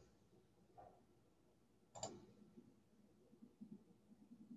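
Near silence: room tone, with one sharp click about two seconds in and a few fainter small sounds.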